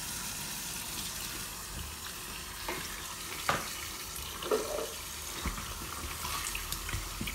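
Tap water running steadily into a stainless steel sink, splashing as snakehead fish are rinsed and handled under it, with a few sharp knocks around the middle.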